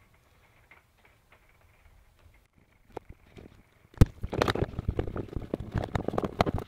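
Hands working loose wiring: a few faint small clicks, then a sharp knock about four seconds in, followed by dense rustling and scraping as wires are gathered and pulled about.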